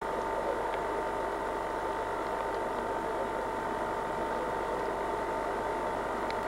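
Diesel locomotive engine running steadily: an even mechanical drone with a steady high whine.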